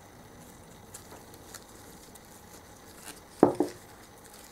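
Small metal hand tools and gearbox parts handled on a workbench: a few faint clicks, then two quick metallic clinks about three and a half seconds in, as circlip pliers and a pick are taken up to fit a circlip.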